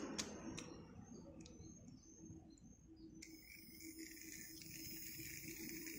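A couple of light plastic clicks as a battery is pressed into a small toy train's battery compartment, with faint birds chirping in the background. A steady high hiss comes in suddenly about three seconds in.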